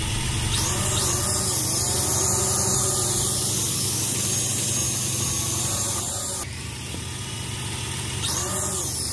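Small toy quadcopter drone's electric motors and propellers running steadily as a hiss-laden whir, with a brief drop in loudness about six and a half seconds in.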